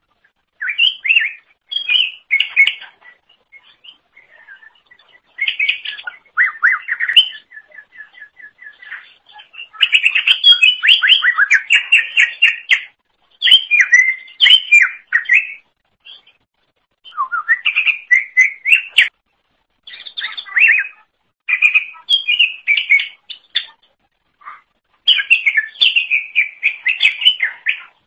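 Cucak ijo (green leafbird) singing: fast, varied chirping and warbling phrases of one to three seconds each, separated by short pauses, with a run of quick evenly repeated notes about eight seconds in.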